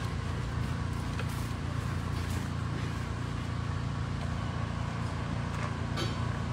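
A small cart engine running steadily while it tows a loaded tiger transport cage along a gravel drive.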